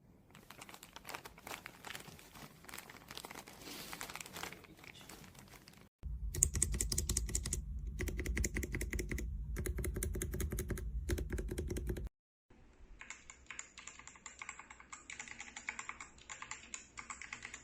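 Typing on a mechanical keyboard fitted with Outemu switches: rapid key clicks and clacks in three separate takes, split by sudden cuts. The first take is faint, the middle one about six seconds in is louder, and the last is faint again.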